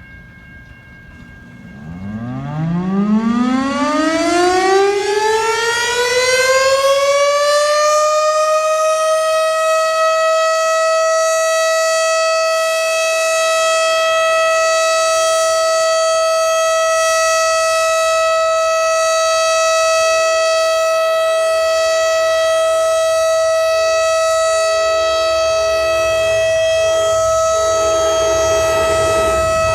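Fire alarm siren winding up from a low growl to a high, steady wail over about six seconds, then holding that tone. A low rumble joins in during the last several seconds.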